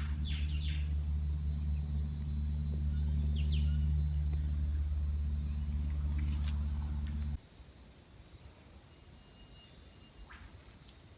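Birds calling in the bush: quick rising and falling chirps and a regular high pipping, over a steady low hum that cuts off suddenly about seven seconds in, after which only faint bird calls remain.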